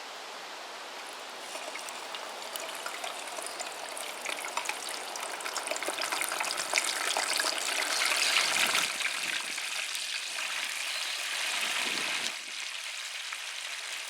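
Cornish game hen deep-frying in hot oil in a Fry Daddy: the oil sizzles and crackles. It starts about a second and a half in and grows louder toward the middle.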